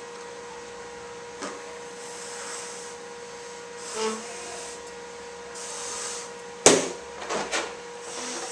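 A rubber balloon being blown up by mouth in several breathy puffs, with a sharp click a little past halfway, the loudest sound, and two smaller puffs after it. A faint steady hum runs underneath.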